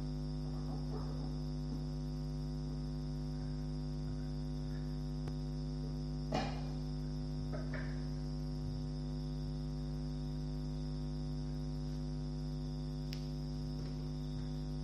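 Steady electrical mains hum with several even tones, and one brief faint sound about six seconds in.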